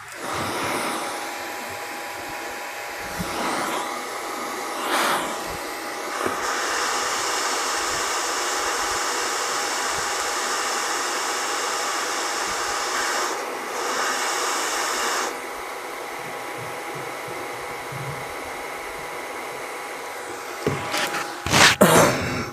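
Hot air rework station blowing steadily on a phone circuit board to desolder and lift off a shorted capacitor. The airflow grows louder and hissier for several seconds in the middle, then settles, and a few sharp clicks and knocks come near the end.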